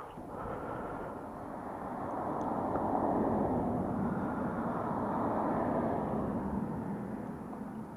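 A passing road vehicle: a broad rushing noise that swells over a few seconds, is loudest around the middle, then fades away.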